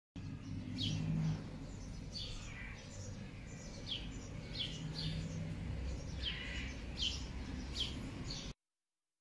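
Small birds chirping: about a dozen short chirps, each falling in pitch, at uneven intervals over a low steady rumble.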